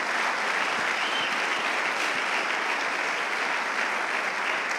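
Audience applauding, steady and even.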